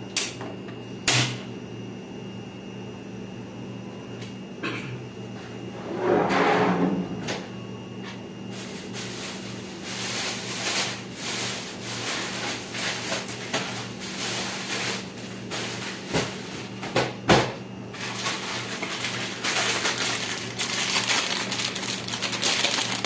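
Water heating in a lidded stainless-steel pot on a stove burner: a hiss with fine crackling that builds gradually from about a third of the way in as the water nears the boil, over a steady low hum. A few sharp clicks near the start.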